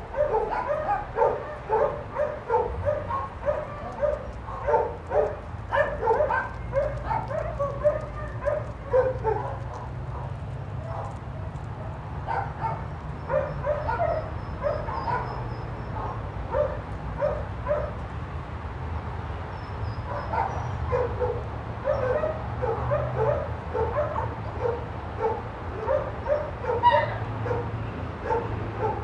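Dog barking repeatedly in quick runs of short barks, about two to three a second, broken by pauses of a second or two, over a steady low hum.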